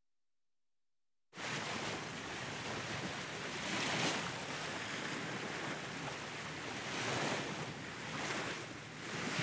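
Silence, then a little over a second in the sea noise cuts in suddenly: a steady rush of waves and spray along a moving ocean liner's hull, swelling in surges.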